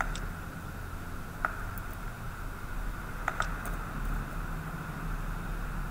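A few sharp clicks of computer keys or a mouse button: one at the start, one about a second and a half in, and a quick pair a little after three seconds. A steady low hum and hiss runs underneath.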